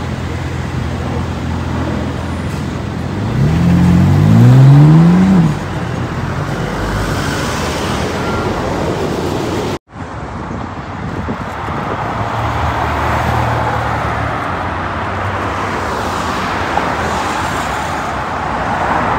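Street traffic with car engines running. About three seconds in, an engine accelerates hard, its pitch rising twice in quick succession as it shifts up through a gear; this is the loudest sound. After a brief sharp dropout near the middle, steady traffic noise and engine hum continue.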